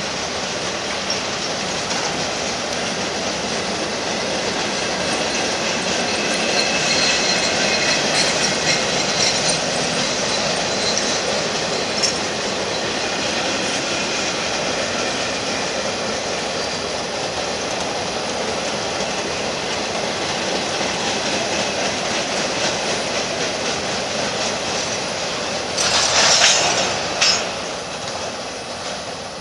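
Union Pacific manifest freight train's boxcars rolling past: a steady noise of steel wheels on the rails, with a faint high whine about a quarter of the way in. Near the end come two short louder bursts, then the sound starts to fade.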